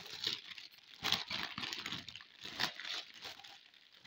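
Thin plastic packaging of a baby clothing set crinkling and rustling as it is opened and pulled apart by hand, in irregular bouts that die down near the end.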